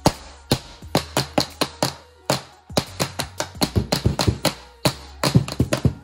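Rapid, irregular knocking and tapping, several strikes a second with a brief pause about two seconds in, as spliced wire test pieces are banged around on a tabletop to shake-test the wire-nut, butt-connector and solder joints for failure.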